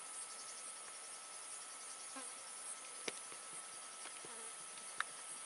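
Insects chirring steadily in a high-pitched drone with fast pulsing, and two sharp clicks about three and five seconds in.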